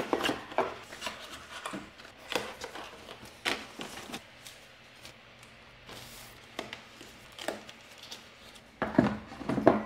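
Cardboard packaging being handled: a string of light knocks, taps and scrapes as items are set into a cardboard box and a card insert is laid over them, with a quieter stretch in the middle.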